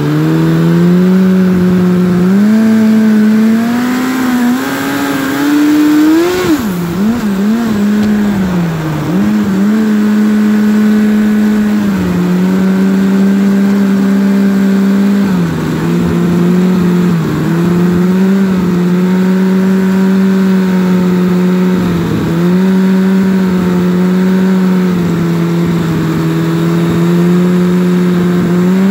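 Turbocharged Suzuki Hayabusa inline-four engine driving a snowmobile through a CVT, running under throttle on about 5 psi of boost. The engine pitch climbs over the first few seconds, wavers up and down briefly, then mostly holds steady with a few short dips.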